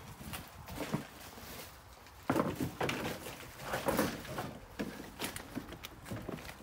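Footsteps through leaf litter and dry undergrowth, with stems brushing against clothing. The steps come irregularly and grow louder and busier about two seconds in.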